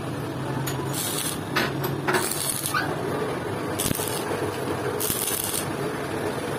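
Stick (arc) welding electrode arcing on a steel valve seat in a motorcycle cylinder head: a crackling hiss that flares up in four short bursts. The weld is run around the seat to loosen it for removal.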